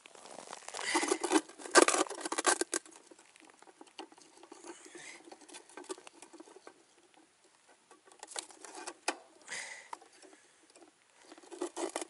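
Scratching, crunching and rustling of hands working in snow at an ice hole while setting a pike tip-up. It is loudest about a second in and again past the middle.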